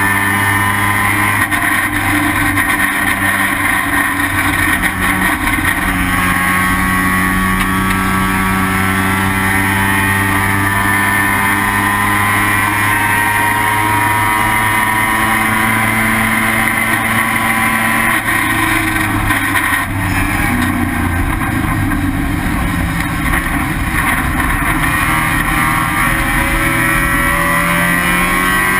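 The rotary engine of an IT7-class Mazda RX-7 running hard at race speed. Its pitch glides slowly, sinking in the middle and climbing again near the end.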